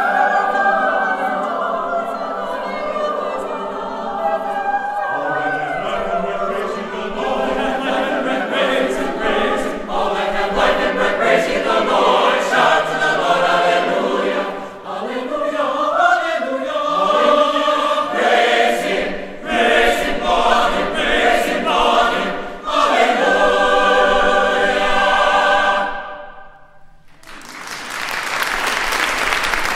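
Mixed choir singing a cappella, ending on a held chord that cuts off about 26 seconds in. Applause follows and swells near the end.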